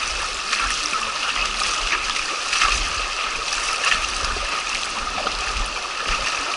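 Shallow mountain river rushing over a gravel riffle close by: a steady, dense rush of water with scattered small splashes and low rumbles that come and go.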